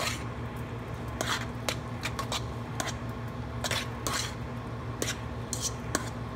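Crumbled cornbread being mixed into sautéed vegetables in a pot, with irregular scrapes and knocks against the pot, a few each second.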